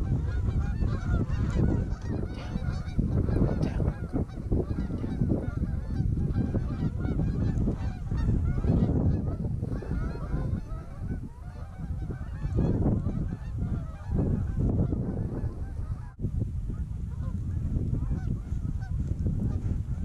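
A large flock of Canada geese honking, many overlapping calls at once without a break.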